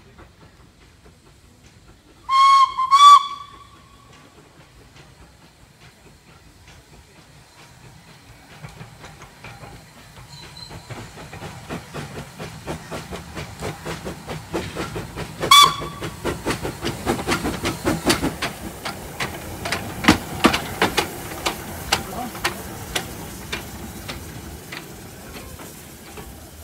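Small saddle tank steam locomotive approaching and passing. It gives two short whistle blasts a couple of seconds in and one more about halfway through. Its steady exhaust beats grow louder as it draws near, with hissing steam.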